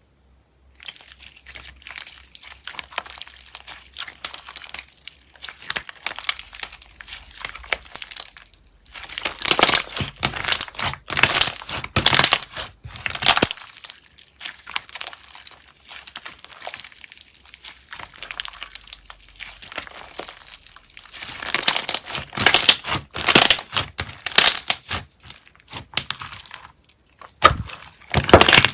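Slime being squeezed, poked and stretched by hand: a dense run of irregular crackling and popping, coming in several stretches with short breaks and louder in the middle and near the end.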